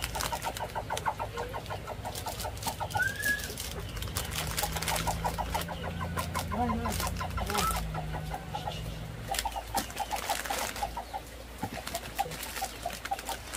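Chickens clucking in long runs of short, rapid calls, with scattered clicks and knocks and one short rising chirp about three seconds in. A low hum runs underneath from about four to nine seconds in.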